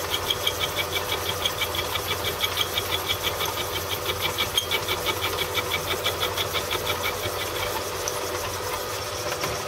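Belt-driven Gingery milling machine running, its motor humming under a rapid, even knocking of about five knocks a second that grows fainter about eight seconds in. The knocking comes from the small pulley on the countershaft, which has come loose on its shaft.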